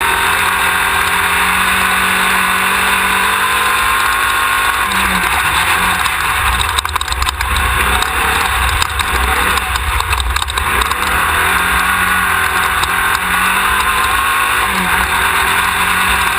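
Off-road race car heard on board: the engine runs steadily under load over a loud rush of wind and drivetrain noise. The engine pitch jumps briefly about five seconds in and again near the end. In the middle the engine note fades under a run of knocks and rattles.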